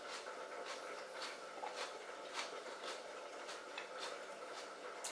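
Raw celery being chewed: faint crisp crunches at a steady rhythm, about two a second.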